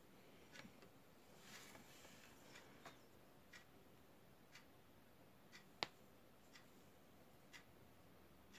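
Near silence with a clock ticking faintly about once a second. A brief rustle and one sharp plastic click come from handling the plastic airliner model, the click just before six seconds in.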